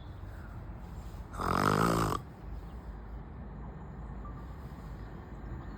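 One loud snore lasting just under a second, about a second and a half in, over a steady low rumble.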